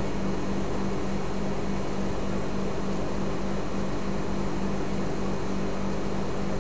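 Steady electrical hum and hiss with a thin high whine, unchanging and without distinct events.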